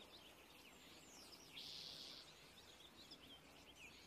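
Faint birds chirping: many short chirps and quick whistled glides, with a buzzy call lasting about half a second, about one and a half seconds in, over a low hum.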